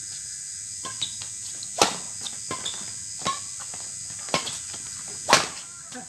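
Badminton rackets striking a shuttlecock in a doubles rally: a string of sharp hits, the loudest about two seconds and five seconds in. A steady high chirring of night insects runs underneath.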